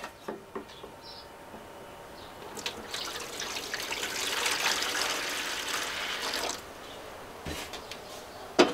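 Water poured from a plastic jug into the water tray of a wet tile saw, starting about three seconds in and stopping about two seconds before the end. A sharp knock comes at the very end.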